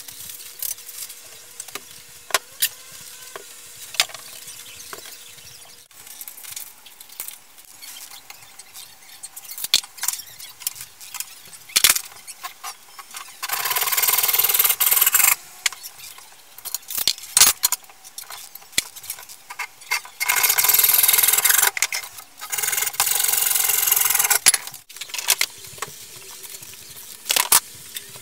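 Woodworking on 2x4 lumber: scattered knocks and clicks of wood and tools being handled, with three loud runs of cutting or drilling noise, each about two seconds long, about halfway through and near the end.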